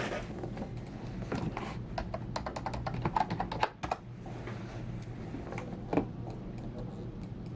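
Typing on a computer keyboard: a quick run of key clicks, then a few scattered keystrokes.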